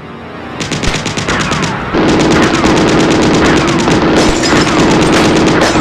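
Battle sound effects of rapid machine-gun fire. The rattle fades in over the first two seconds and then runs on loud and dense, with short falling whistles every half second or so and a steady hum underneath.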